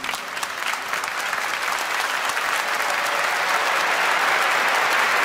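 Large audience applauding: separate claps at first, building within about two seconds into dense, steady applause.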